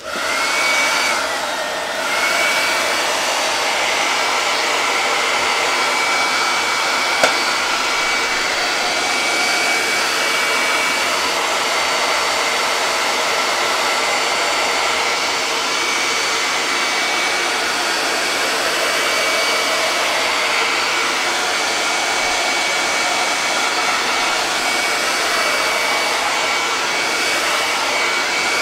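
Handheld hot-air dryer blowing steadily with a thin high whine over the rush of air, drying a freshly painted base coat.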